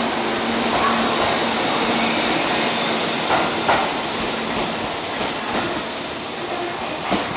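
Tobu Railway electric train pulling out of the station, its running noise slowly fading as it draws away. A few sharp clacks come about three seconds in and again near the end.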